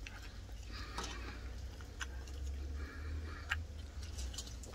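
A person chewing a mouthful of frybread hot dog: faint soft clicks and wet smacks of the mouth, over a steady low hum.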